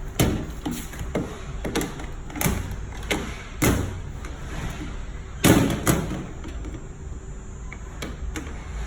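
A run of irregular thumps and knocks, about nine in the first six seconds, the loudest a double knock about five and a half seconds in, over a steady low machine hum.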